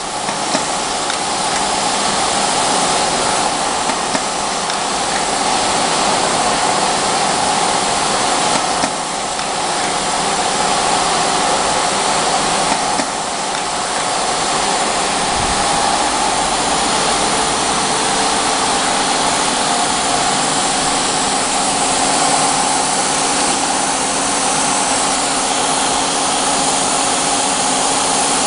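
Loud, steady mechanical drone with an airy hiss from running workshop machinery. It goes on without rhythm or pause, and no separate strokes of the labeling machine stand out above it.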